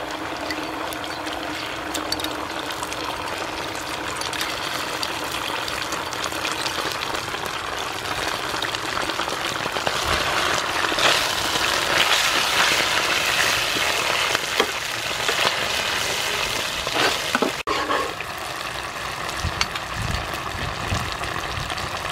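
Chili sauce and chopped garlic sizzling in hot oil in a nonstick frying pan. About ten seconds in, a metal spoon scrapes and stirs the pan and the frying gets louder for several seconds, then it settles back to a steady sizzle.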